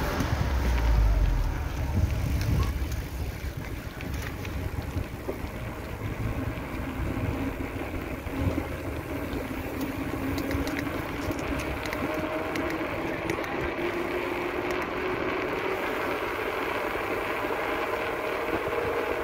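Wheels rolling on asphalt, with wind noise on the microphone. A low rumble swells in the first couple of seconds as a white Jeep Grand Cherokee passes close by. From about eight seconds on, a faint whine slowly rises in pitch.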